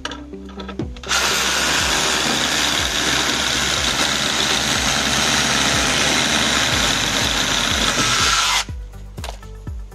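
Cordless hammer drill drilling into concrete at the foot of a formwork panel, for the pins that hold it: one continuous run of about seven and a half seconds that starts about a second in and cuts off sharply. Soft background music plays under it.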